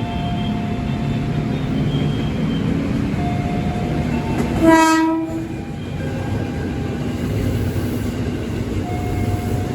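A train passing with a continuous low rumble and a faint steady whine. A short horn blast sounds about five seconds in.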